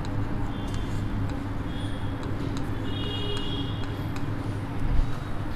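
Chalk writing on a blackboard, heard as faint taps and a few short squeaks over a steady background hum.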